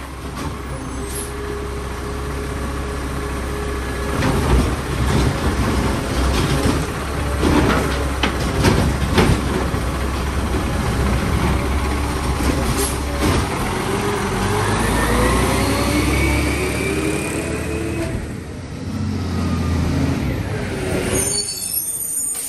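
Peterbilt 520 diesel garbage truck with a McNeilus ZR side-loader body working: the engine runs steadily with several loud clanks and knocks, then revs up in a long rising whine.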